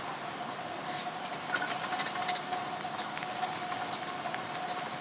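7¼-inch gauge miniature railway train running along the track: a steady hiss with a faint steady whine and scattered light clicks.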